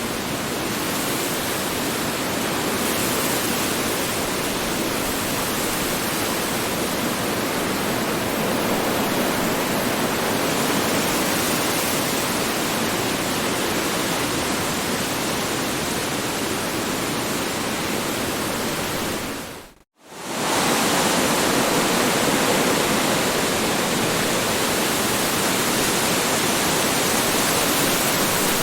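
Strong wind blowing steadily as a dense rushing noise. About two-thirds of the way through it fades out to silence for a moment, then comes straight back.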